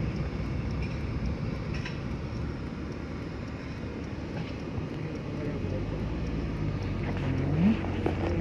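Motor vehicle driving: steady engine and road rumble, with the engine note climbing briefly near the end as it speeds up.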